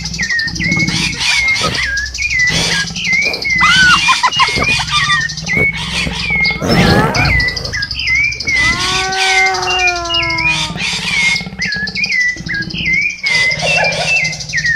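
Birds chirping in quick repeated notes throughout. About eight and a half seconds in, a louder pitched animal call is held for about two seconds, falling slightly.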